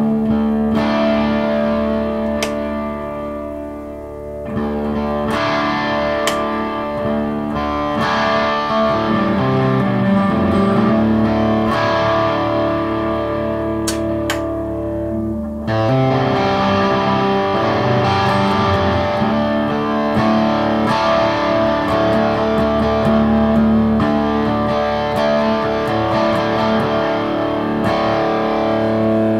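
Gretsch White Falcon G6136T hollow-body electric guitar with Filtertron pickups, played through a Laney amp: chords picked and strummed and left to ring. The playing dips softer about four seconds in and grows fuller and louder from about halfway through.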